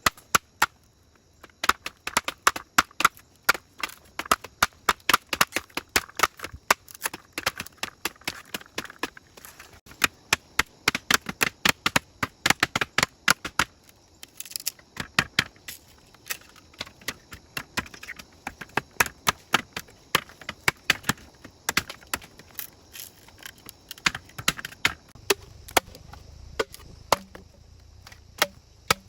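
Repeated chopping blows into bamboo with a blade, sharp strikes a few times a second in runs broken by short pauses.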